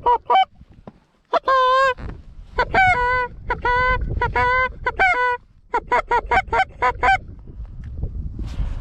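Loud goose honks and clucks in rapid runs of about five a second, with a longer wavering moan about a second and a half in. The calling breaks off about a second before the end, leaving only low wind noise.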